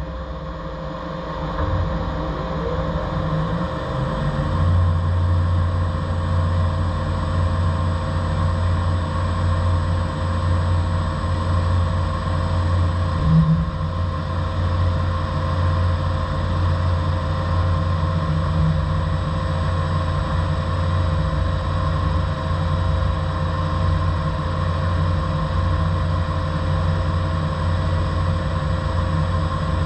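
MXS 400MT 5-axis mill-turn CNC machine running: a steady low drone with fixed whining tones above it. A rising whine comes about two seconds in as it spins up, and the drone grows stronger about four seconds in.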